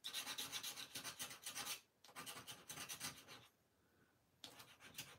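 A red plastic scratcher rubbing the latex coating off a lottery scratch card in quick back-and-forth strokes. The strokes come in short spells with brief pauses between them.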